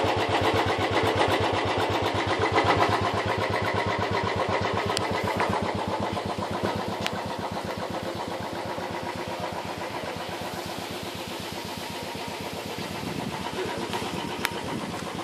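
A small engine idling steadily with an even, rapid pulse, growing somewhat fainter over the second half. A few light clicks sound over it.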